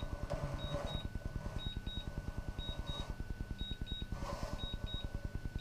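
Electronic warning beeps in pairs, about one pair a second, from the DJI Phantom 3 system during an auto-landing, over a low, fast, steady pulsing hum.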